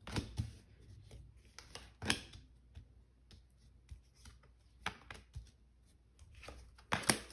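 Tarot cards being dealt one at a time onto a tabletop: four sharp card snaps a couple of seconds apart as each card is flipped and laid down, with faint sliding and rustling of the cards in between.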